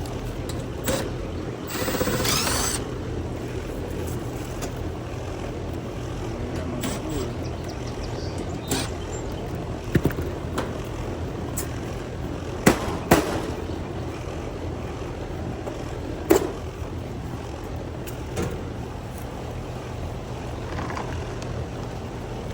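Outdoor AC condenser fan motor running steadily on its own while the compressor stays off, the sign of a failed run capacitor. A rustle about two seconds in and a few sharp clicks and knocks of equipment being handled stand out over the hum.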